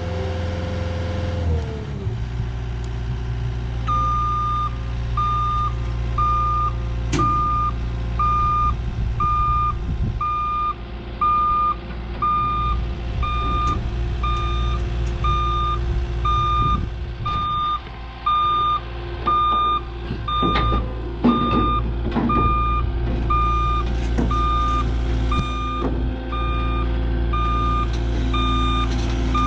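Cat 257D compact track loader's diesel engine running while its backup alarm beeps about once a second, starting about four seconds in, as the machine reverses up onto a trailer's ramps. A few sharp clanks come in the middle.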